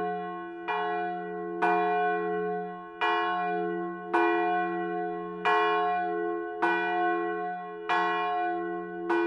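A single church bell tolling, struck about every second and a quarter, each stroke ringing on into the next.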